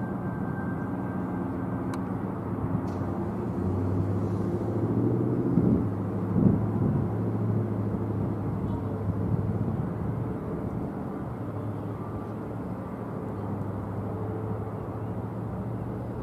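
Boeing 777-200ER jetliner's twin turbofan engines at low approach power during its final descent to landing: a steady low drone with a few short louder low bursts about six seconds in.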